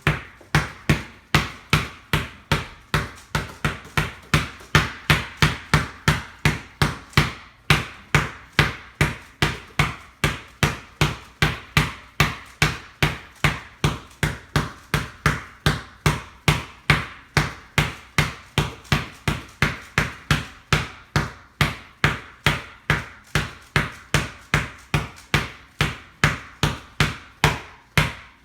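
Basketball dribbled steadily on a hard floor: a sharp, thudding bounce about three times a second in an even rhythm.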